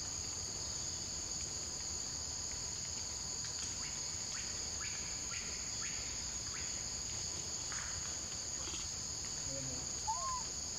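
Steady, high-pitched chorus of forest insects, a continuous two-tone buzz. A brief chirp about ten seconds in.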